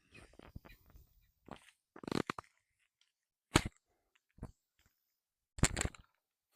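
Small rocks knocking and crunching together: four or five short, sharp hits spaced about a second apart, the loudest two about halfway through and near the end.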